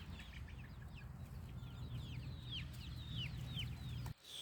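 A flock of desi chicks peeping: many short, high calls, each falling in pitch, overlapping continuously. A steady low rumble runs underneath and cuts off suddenly near the end.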